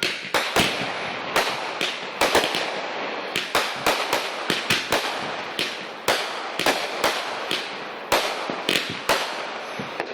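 Fireworks going off in a rapid barrage: sharp bangs several times a second over a continuous crackling.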